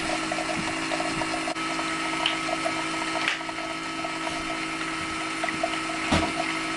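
Coffee maker brewing, its pump and water running with a steady, loud hum and bubbling. Two light knocks come about three and six seconds in.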